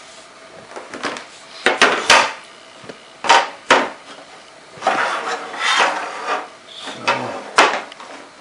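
Handling noises as a small RC boat is fitted onto its display stand: a series of sharp clicks and knocks, with a stretch of scraping and rubbing in the middle.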